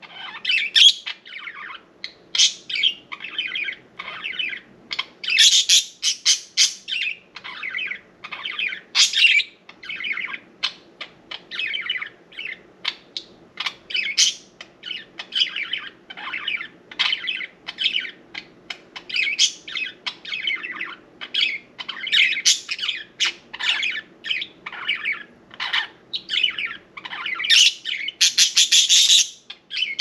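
Pet budgerigars chattering without a break: a fast, jumbled run of short chirps, warbles and squawks, with a louder burst near the end.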